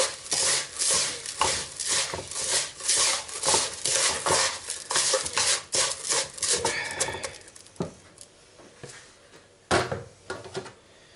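Bare hands mixing a wet gravlax cure of grated beetroot, sea salt and brown sugar in a ceramic bowl: a quick run of rubbing strokes for about seven seconds, then quieter, with one sharp knock near the end.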